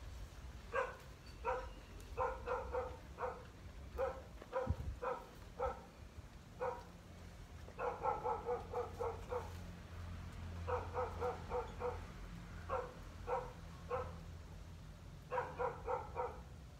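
A dog barking repeatedly, sometimes one bark and sometimes quick runs of several barks, with pauses between. A low rumble runs underneath, with a single low thump about five seconds in.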